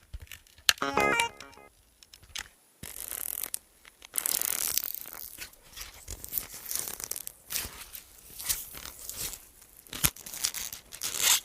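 Quick crackling, tearing and snapping of a foley prop worked by hand to imitate popcorn popping, with a short musical sting about a second in.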